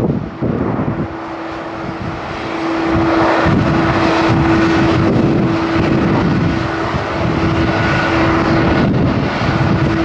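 Jet engines of a Boeing 787 airliner running on the runway. The engine noise dips briefly about a second in, then grows louder and holds steady, with a constant humming tone through it.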